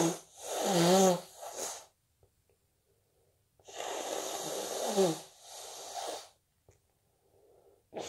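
A person with a stuffy, snotty cold sneezing twice, about four seconds apart. Each sneeze is a rush of congested breath ending in a short voiced cry, followed by a softer snuffle.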